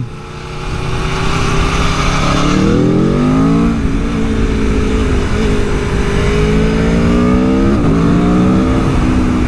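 Aprilia Tuono V4 1100's 1077 cc V4 engine pulling under acceleration: the engine note climbs steadily, drops sharply at an upshift about four seconds in, then holds at cruise with another brief dip and recovery near eight seconds. Wind rush runs underneath.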